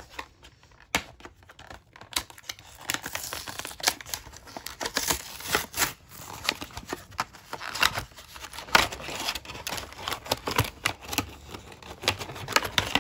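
Cardboard backing card tearing and a clear plastic blister pack crinkling and crackling as it is torn open by hand to free a small diecast toy car. Irregular crackles, sparse at first and thicker from about two seconds in.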